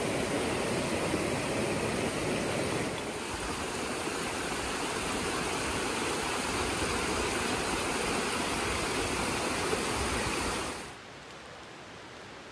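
Steady rush of flowing water. About eleven seconds in it cuts off abruptly, leaving a much fainter steady hiss.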